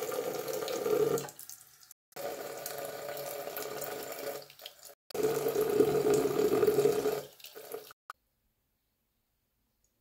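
Tap water running into a bathroom sink basin while a plastic tongue scraper is rinsed under the stream. It comes in three spans of about three seconds each, each cut off abruptly, and stops about eight seconds in.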